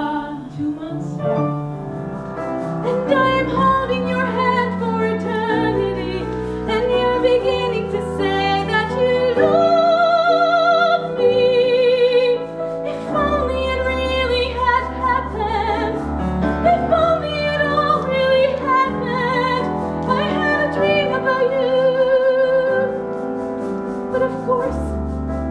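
A woman singing a slow song in a classical, operatic style, holding long notes with a wide vibrato, over sustained instrumental accompaniment that may include piano.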